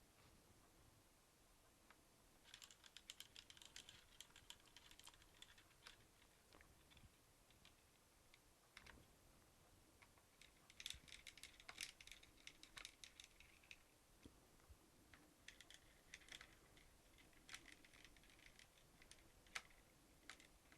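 Faint typing on a laptop keyboard: three runs of quick key clicks with short pauses between them.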